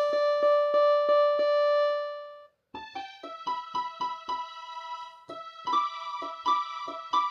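Suzuki Omnichord OM-108 electronic instrument: a held note with a rhythm-pattern click about three times a second, fading out about two and a half seconds in. After a short gap come quick, short notes like an electric piano, played in keyboard mode.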